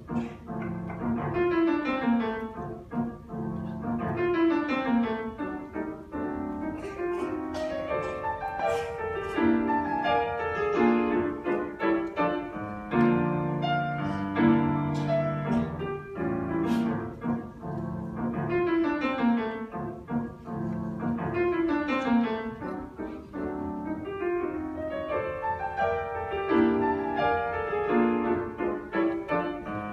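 Grand piano played solo: fast flowing passages with repeated descending runs over sustained low chords, the bass chords heaviest about halfway through.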